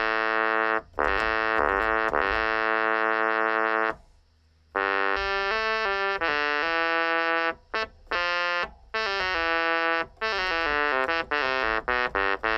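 1982 Technics SX-K200 electronic keyboard playing a solo synth voice, with quick runs of notes and some held notes. A short break comes about four seconds in.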